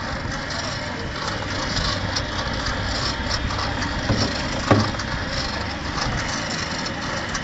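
Squeeze hose pump pumping mud, running steadily together with a mortar mixer: a continuous mechanical hum and clatter. A single knock comes about four and a half seconds in.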